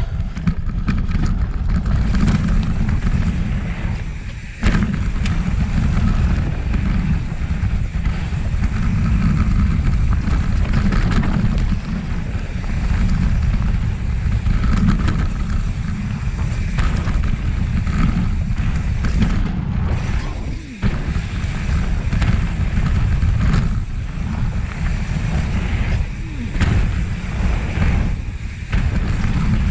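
Wind buffeting the microphone of a rider-mounted camera on a mountain-bike descent, a steady low rumble, with tyre noise on the dirt trail and scattered short clicks and rattles from the bike over bumps.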